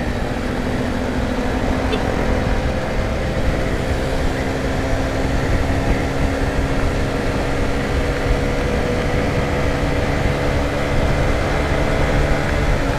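Honda CBR150R single-cylinder motorcycle engine running at a steady cruising speed, with wind noise on the microphone. The engine note eases slightly lower near the end.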